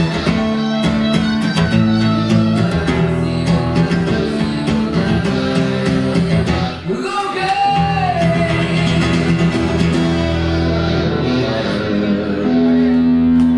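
Electric and acoustic guitars playing a song live together, with a long held note near the end.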